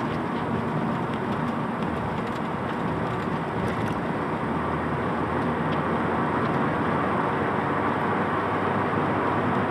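Steady in-cabin road and engine noise of a manual car driving down a steep, winding mountain road.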